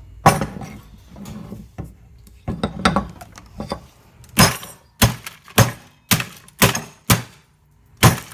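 Clattering, then a run of sharp knocks, about two a second, from roughly halfway through: hard objects being struck or banged.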